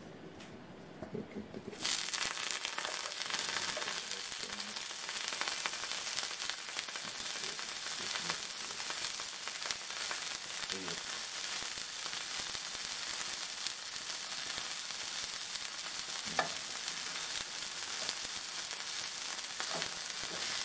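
Pancakes frying with margarine in a hot nonstick griddle pan: a steady crackling sizzle that starts suddenly about two seconds in, with a few light taps of a spatula.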